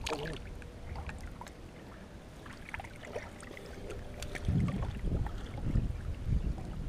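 Water sloshing and lapping as people wade chest-deep through a muddy pond, with scattered small splashes. From about two-thirds of the way in, a heavier low rumbling of moving water.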